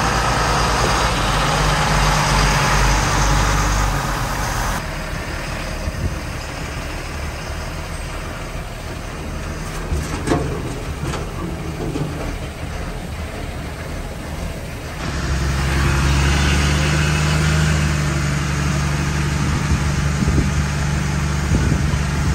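M1079 LMTV military truck's diesel engine running as the truck drives, a steady low engine note. It drops to a quieter, hissier stretch in the middle and comes back strongly about two-thirds of the way through.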